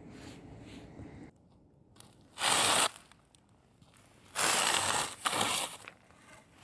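Two loud snores from a sleeping person: a short one about two and a half seconds in, then a longer one about four and a half seconds in that breaks briefly in the middle.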